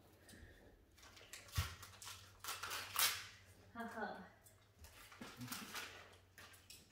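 Short rustles and knocks of a gift box and its contents being handled, the sharpest about three seconds in, between a few brief spoken sounds.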